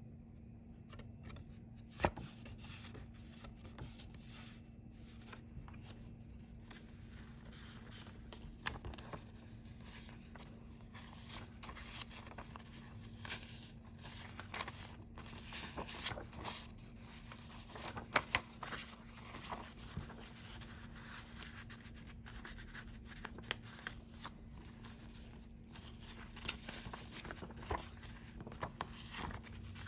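Paper rustling and sliding as hands handle cards and paper inserts of a handmade junk journal, with a few sharper ticks of paper and card, the loudest about two seconds in and twice around the middle. A faint steady hum runs underneath.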